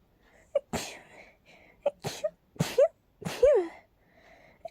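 A person sneezing rapidly in a fit of about four sneezes in quick succession, each with a short sharp intake of breath just before it. The last sneeze is the loudest and is voiced. These are allergy sneezes.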